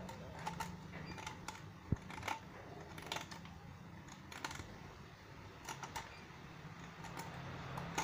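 Scattered light metallic clicks and taps as a rusty, weakened coil spring is twisted off a washing machine's suspension rod by hand, over a faint steady low hum.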